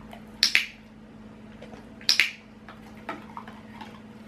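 Dog-training clicker clicked twice, under two seconds apart, each a sharp double click of press and release. The clicks mark the dog licking its muzzle. Fainter licking sounds come in between.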